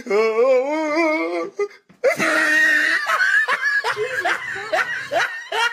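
Laughter: first a drawn-out voice wavering in pitch, then after a brief pause about three seconds of rhythmic ha-ha laughing, roughly three pulses a second.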